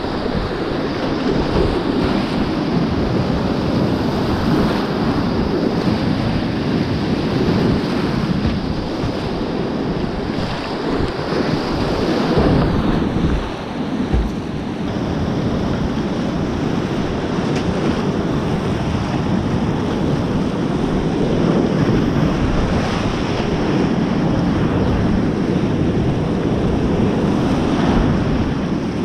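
Whitewater river rapids rushing and churning close around a kayak, a loud steady roar with water splashing over the boat-mounted microphone.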